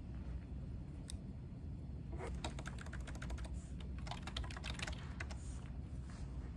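Typing on a computer keyboard: one click about a second in, then a quick run of key clicks from about two seconds in, tailing off near the end.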